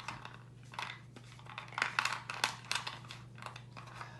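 Wooden alphabet letters clicking and clacking as they are picked through and handled in a wooden box: a run of irregular small knocks and rustles.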